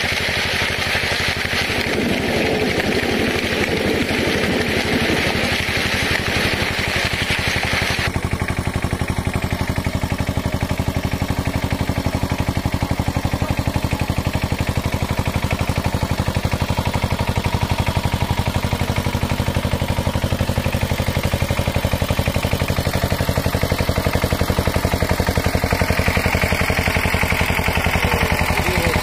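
Single-cylinder diesel engine of a two-wheel walking tractor (power tiller) running under load in paddy mud, with a steady, rapid chugging. A rushing noise lies over it at first and cuts off suddenly about eight seconds in.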